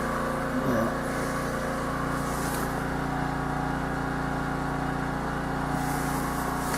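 A steady low machine hum made of several even, unchanging tones, like a fan or small motor running.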